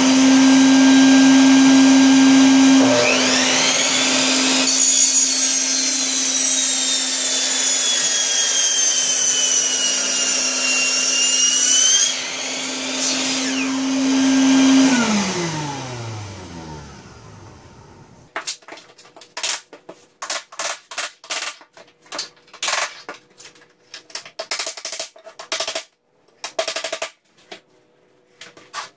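A shop vacuum runs with a steady hum. About three seconds in, a miter saw spins up with a rising whine and cuts through a 12 mm laminate floor plank, its whine falling in pitch through the cut before it stops; the vacuum then winds down. After a short gap comes a run of sharp clicks and knocks as laminate planks are fitted and tapped into place.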